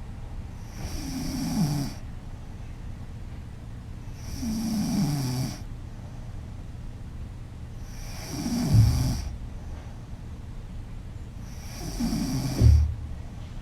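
A woman snoring loudly in sleep, four snores about four seconds apart, each lasting about a second and falling in pitch as it goes. The last two end in a deeper rattle.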